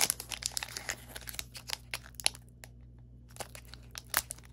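Foil Pokémon booster-pack wrapper crinkling and crackling as it is handled and pulled open, a run of light crackles with a short lull a little past halfway.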